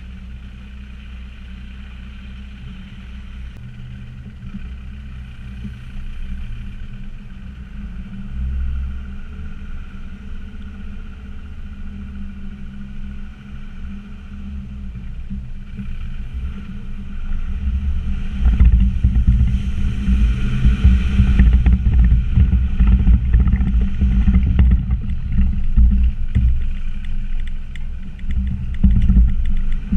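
Land Rover Discovery Td5's five-cylinder turbodiesel engine running as the vehicle drives over rough off-road ground. The low rumble grows much louder past the halfway mark, with many short knocks and jolts.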